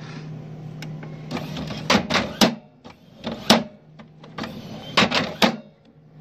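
HP Smart Tank 500 print carriage slamming hard into the side of the printer frame, in loud knocks over a steady hum: three about two seconds in, one more a second later, and three more near the end. The owner traced the fault to the carriage's encoder strip slipping out of place, so the head cannot tell where to stop.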